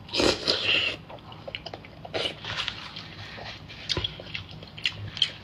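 A sauce-covered grilled oyster slurped and bitten off a skewer in the first second, then chewing with many short wet mouth clicks and smacks.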